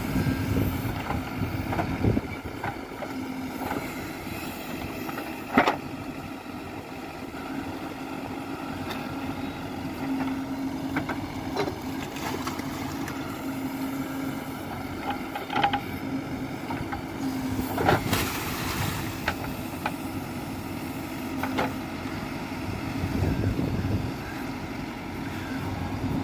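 Heavy diesel engine running steadily, with a few sharp knocks over it; the loudest knock comes about five and a half seconds in and another near eighteen seconds.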